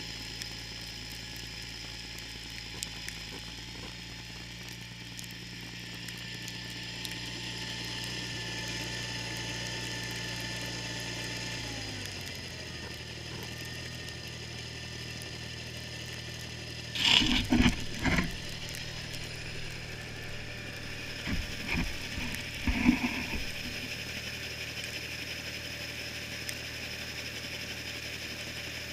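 John Deere 318 garden tractor's engine running steadily with its Model 49 snowblower attached, with a mechanical gear-like chatter. A little under halfway through, the engine pitch drops. Two clusters of loud clunks and rattles follow a few seconds apart.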